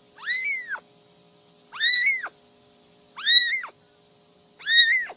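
Cat meowing four times at even intervals, each a short high-pitched call that rises and then falls.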